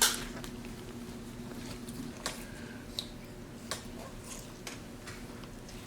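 Soft squishing of sticky slime with scattered small clicks as a capuchin monkey pulls and tears at a large ball of it, over a faint steady low hum.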